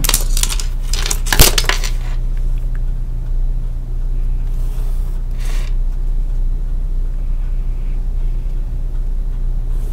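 Clicks and clatter of a plastic drafting triangle being handled and set down on the drawing sheet: a few knocks in the first two seconds, the sharpest about a second and a half in. A brief soft scrape follows around the middle, over a steady low electrical hum.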